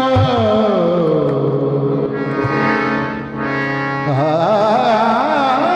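Qawwali music: harmoniums sounding a steady chord under a sung line. The voice slides down over the first second or so and holds low, then from about four seconds in it sings a wavering, ornamented phrase.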